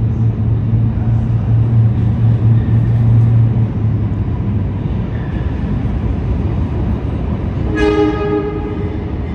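Diesel work locomotive approaching through the subway tunnel with a steady low drone that fades after about four seconds, then one horn blast, a chord about a second and a half long, near the end.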